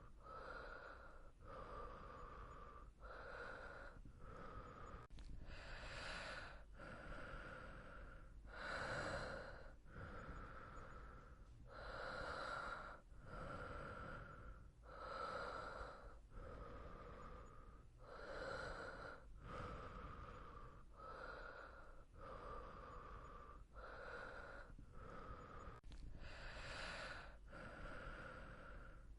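Soft, steady breathing of a sleeping person: slow breaths in and out in an even rhythm, about one full breath every three seconds.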